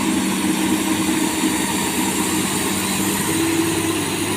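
Komatsu hydraulic excavator's diesel engine running steadily, with a constant drone and no distinct impacts.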